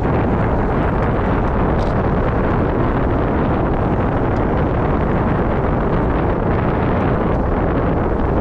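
Steady wind noise on a moving GoPro's microphone: a dense, even rush with most of its weight in the low range.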